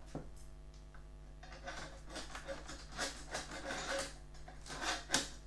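Hands handling the blue plastic bracket frame of a pack of prismatic LiFePO4 cells: irregular plastic clicks, rattles and rubbing from about a second and a half in, with one sharp click near the end.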